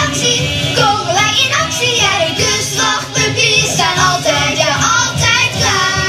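Upbeat children's cartoon song: sung vocals over a bouncy band backing. Just before the end the singing stops and a held chord carries on.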